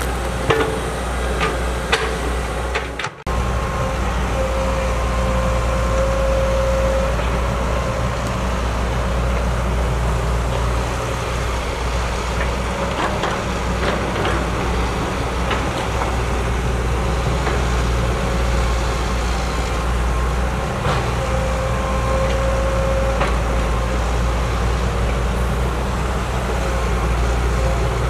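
Crawler excavator's diesel engine running steadily under working load, with a hydraulic whine that comes and goes as the boom and bucket move, and occasional knocks of the bucket digging and dumping soil into a dump truck. The sound breaks off briefly about three seconds in.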